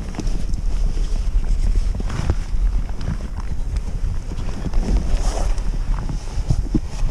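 Wind buffeting the microphone, a heavy gusting low rumble, with scattered knocks and rustles on top.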